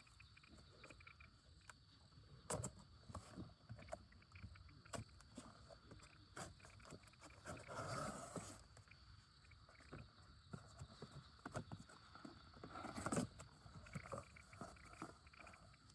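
Campfire crackling: irregular small pops and clicks, with two brief louder rustling swells, one about eight seconds in and one about thirteen.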